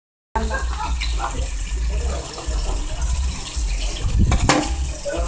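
Water running steadily, with a single sharp knock about four and a half seconds in.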